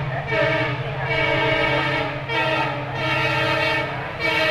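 Indian Railways locomotive horn sounding in several long blasts with brief breaks between them, over a steady low engine hum.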